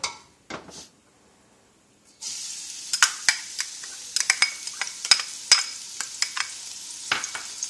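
Chopped shallots dropped into hot cooking oil in a wok about two seconds in: a sudden steady sizzle full of crackling pops. A couple of light knocks come just before.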